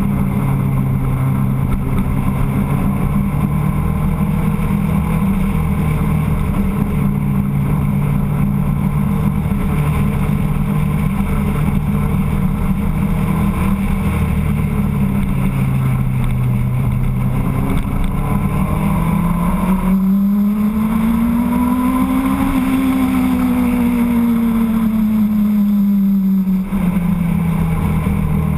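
Motorcycle engine running steadily under way, with wind rushing over the microphone. Past the middle its pitch climbs for a few seconds and then falls back, with a brief dip in level near the end.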